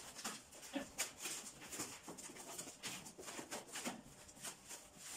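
Cardboard box and plastic wrapping rustling and scraping as they are handled, in short irregular bursts.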